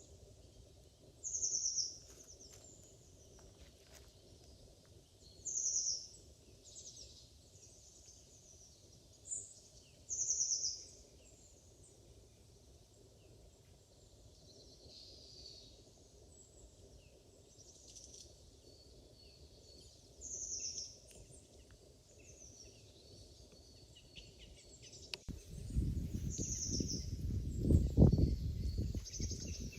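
A songbird repeating a short, high call every few seconds over a faint outdoor hush. Near the end a loud low rumble sets in and runs on.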